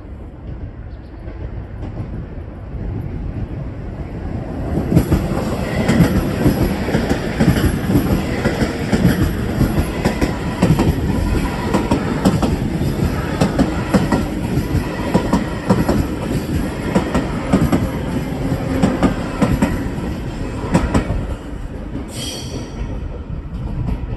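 Electric train passing at speed, its wheels clicking rapidly over the rail joints, with steady high tones while the cars go by. The sound builds over the first five seconds and falls away near the end.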